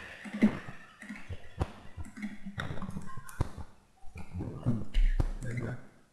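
Computer mouse clicks and key taps, a handful of short sharp clicks spread irregularly through the few seconds.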